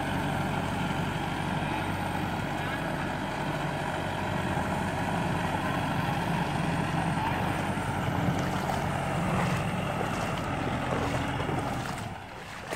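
Tractor diesel engine running steadily under load as it drives a rotary tiller through flooded paddy mud. The sound drops away near the end.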